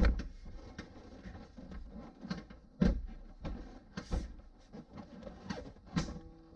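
Irregular knocks, clicks and thumps of a car's front-end panel being handled and pushed shut from both sides, with a heavy thump at the start and another about three seconds in.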